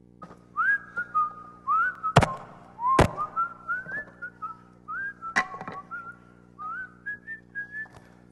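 A person whistling a tune, each note sliding up into place, broken by a few sharp knocks and thuds about two, three and five and a half seconds in.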